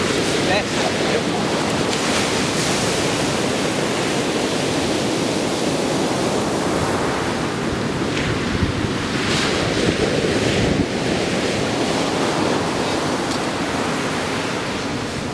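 Ocean surf breaking and washing up a sandy beach, a steady rush of waves, with wind buffeting the microphone.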